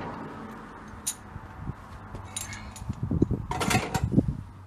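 Tools clinking and knocking on metal while working on the front coil-spring suspension. There are a few single clicks, then a flurry of sharp metallic clinks and knocks about three to four seconds in.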